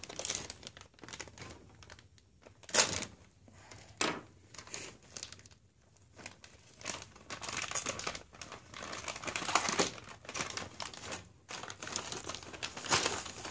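Clear plastic bag crinkling and rustling in irregular bursts as it is handled and opened, with a couple of sharp knocks.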